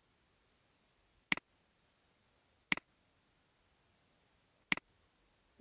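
Three sharp computer mouse clicks, spaced about a second and a half to two seconds apart, with near silence between them.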